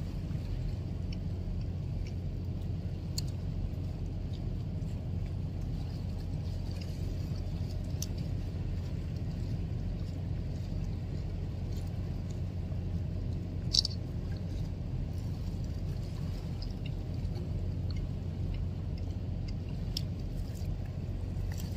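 Steady low engine rumble, with a few faint clicks and one sharper click about 14 seconds in.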